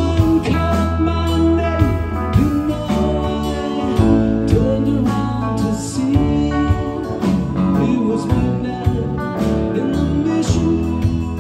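Live rock band playing: electric guitar, bass guitar, drum kit and electric keyboard together, with gliding, bending notes over a steady low end.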